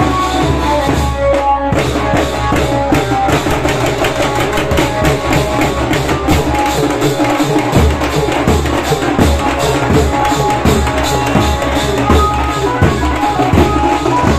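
A street banjo band: a large bass drum, barrel drums and small stick-beaten drums playing a fast, dense rhythm together. A thin amplified melody line, typical of the Indian banjo (bulbul tarang), rides over the drums, clearest at the start and again near the end.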